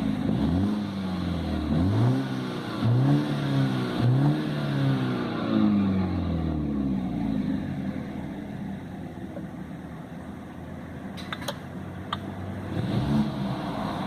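Turbocharged BMW engine revved in about five quick blips through the exhaust with its valve (flapper) held open, then settling back to idle. A few sharp clicks come late on, followed by one more short blip near the end.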